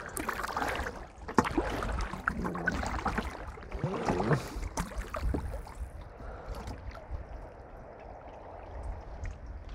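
Kayak paddling: water splashing and dripping off the paddle and slapping against the hull, with a few small knocks, over a low wind rumble on the microphone. It is busier in the first half and settles to a quieter water wash later.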